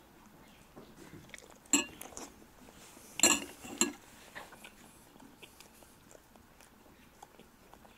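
Cutlery clinking against dishes at the table: one sharp clink about two seconds in, then a quick cluster of clinks a second later, with a few faint small clicks between.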